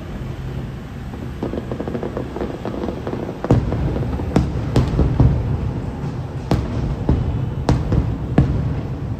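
Aerial fireworks shells bursting: a string of sharp bangs, about seven of them, mostly from about three and a half seconds in.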